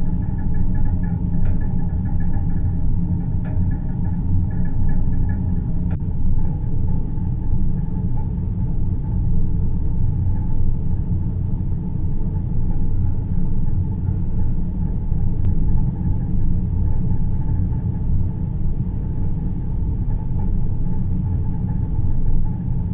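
Deep-space ambient soundscape: a steady, dense low rumble, with a faint flickering higher tone over the first few seconds, and no music.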